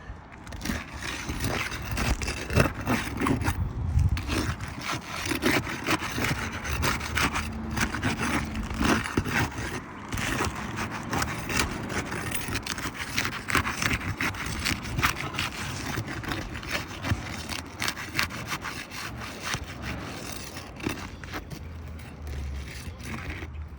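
Roof shingles being pried and unsealed from the shingles beneath: a long run of irregular scraping and rubbing with many small cracks and clicks as the sealant strips come loose.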